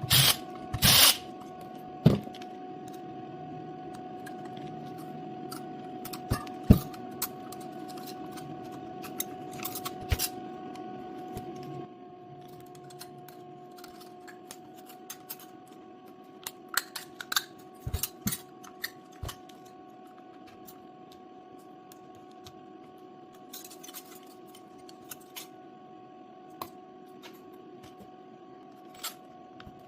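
Scattered sharp clicks and taps of hand work on a Milwaukee power-tool battery pack during cell replacement. Underneath runs a steady hum that drops in level about twelve seconds in.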